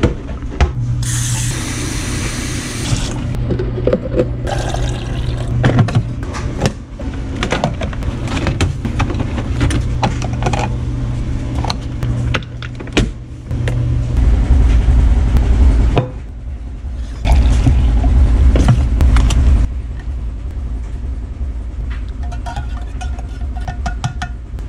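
Coffee being made by hand: cabinet and cup handling knocks, a single-serve coffee maker brewing into a mug, and a spoon clinking in the cup as it stirs near the end, with a steady low drone underneath.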